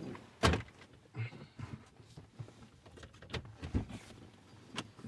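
Scattered sharp knocks and clicks of plastic parts and wiring-harness connectors being handled and plugged in behind a car's dash, the loudest a single knock about half a second in.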